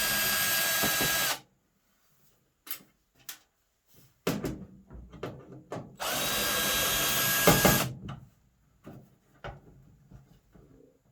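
Power drill running twice, about two seconds each time with a steady whine, backing out the screws under a dryer's lint trap. Small clicks and clatter of handling come between and after the runs.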